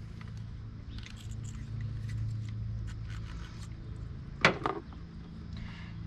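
Light clicks and scrapes of a screwdriver working at a plastic sensor connector on an engine, with one brief sharp squeak about four and a half seconds in, over a steady low hum.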